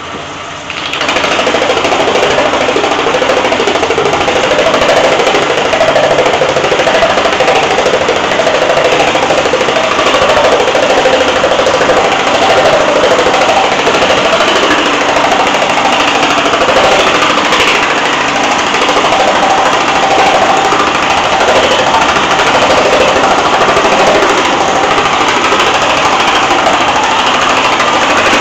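Homemade power hammer running, its dies hammering rapidly and steadily on a sheet of 20-gauge steel as the sheet is worked around under them. The hammering comes up to full level about a second in.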